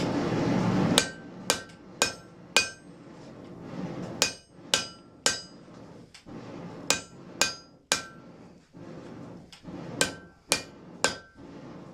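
Blacksmith's hammer striking iron on an anvil while forging a nail: groups of three or four ringing blows, about two a second, with short pauses between groups. A rushing noise builds in the first second, before the first blow.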